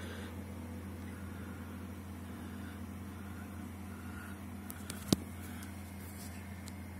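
Steady low electrical-sounding hum, with a single sharp click about five seconds in.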